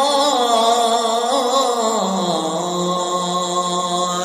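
A man's solo voice chanting the adhan, the Islamic call to prayer, drawing out a long melismatic vowel of "Allahu akbar". The note is ornamented at first, then drops to a lower steady held note about halfway through.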